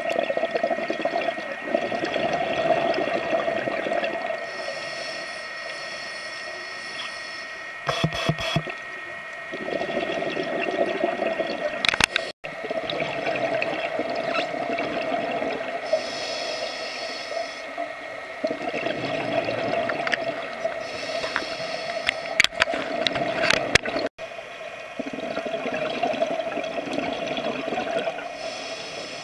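Underwater scuba breathing: a regulator's hiss and gurgling exhaled bubbles, swelling and fading in cycles every few seconds over a steady hum, with a few sharp clicks.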